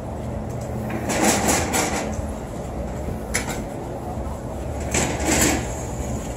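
Outdoor city ambience: a steady low traffic rumble, with two louder, noisy swells, one about a second in and one about five seconds in, and a short click between them.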